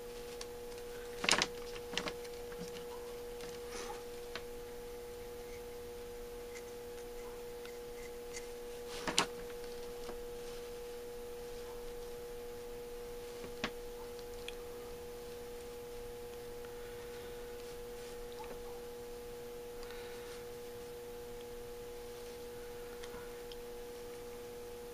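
A steady high hum, one constant tone, under a few sharp clicks of small carburetor choke parts being handled, the loudest about a second in and about nine seconds in.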